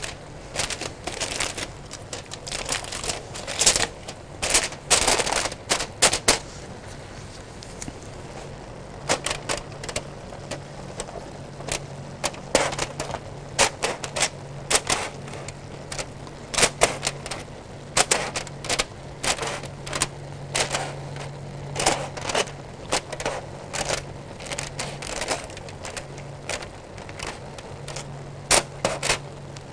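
Aluminium foil stretched over a pot of rice being crinkled around the rim and then pierced again and again with a pointed utensil: irregular runs of sharp crackling pops and taps, with a short pause partway through. The holes are made to let steam out of the foil cover.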